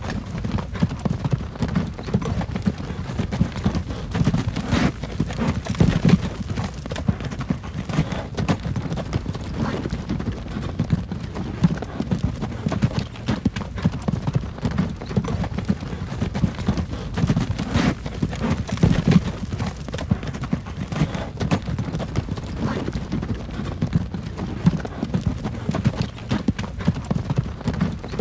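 Horse-drawn wagon on the move: steady clip-clop of hooves over the low rumble of the wagon's wheels.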